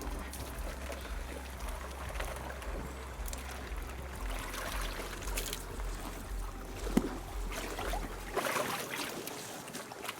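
Water splashing and trickling, with a sharp knock about seven seconds in and a louder splash just after, over a pulsing low rumble that cuts off near the end.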